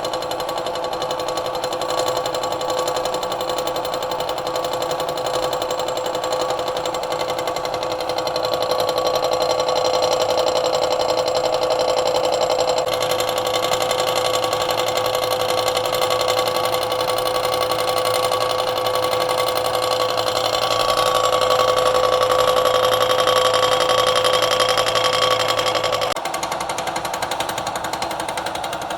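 Milling machine running with a cutter surfacing a workpiece: a steady machine whine with fast, even cutting chatter. About 26 seconds in, the sound drops and a low hum stops.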